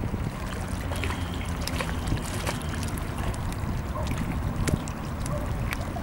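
Distant low rumble of an Embraer E195 airliner's jet engines as it climbs away after take-off, under steady wind buffeting the microphone and a few small clicks.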